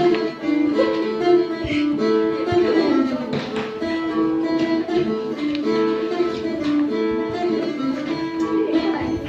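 Phin, the plucked Isan lute, playing a melody of quick plucked notes.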